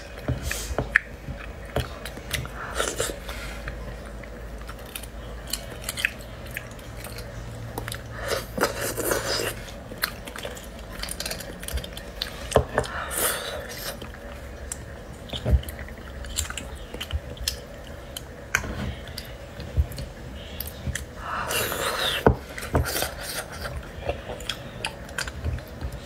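Close-miked chewing and mouth sounds of someone eating roasted beef bone marrow, with short clicks and scrapes of a metal utensil digging marrow out of the bones and a few louder noisy spells of eating.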